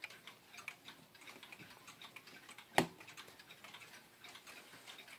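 Howard Miller 612-412 regulator wall clock ticking faintly and steadily from its Hermle 151-030 pendulum movement, with one sharper knock a little under three seconds in.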